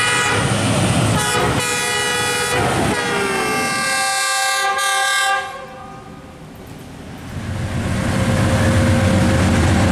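Diesel locomotive's multi-note horn blowing one long, loud blast, broken briefly twice, then cut off about five seconds in. After a short lull, the low rumble of an approaching train builds up again.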